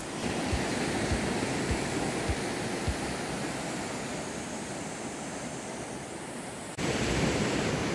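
Steady wash of small surf breaking on a sandy beach, heard as an even hiss. Soft low thumps come at a walking pace for the first three seconds, and the sound jumps abruptly louder near the end.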